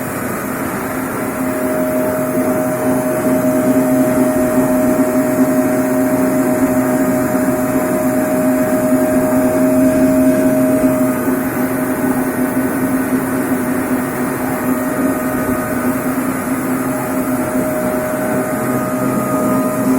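Band sawmill running, a steady machine hum that holds one pitch throughout.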